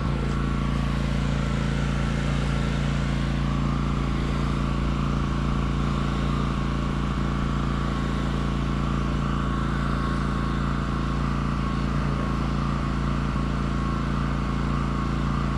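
WEN GN400i inverter generator running steadily in normal mode (eco off), with an even engine hum that holds one pitch throughout.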